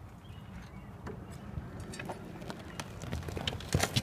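A person moving about on gravel: scattered light footsteps and knocks over a low rumble, with a couple of sharper knocks near the end.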